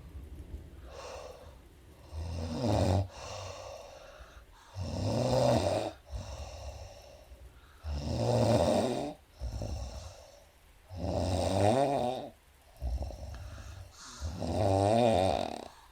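A sleeping woman snoring: five loud, pitched snores about three seconds apart, with softer breathing sounds between them.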